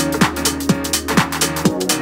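Electronic background music with a steady beat of about two drum hits a second over a sustained bass.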